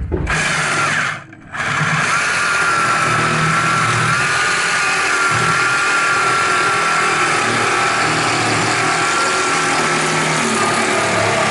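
Handheld power tool motor running under load: a short run, a brief stop about a second in, then a long steady run with a thin whine that wavers slightly.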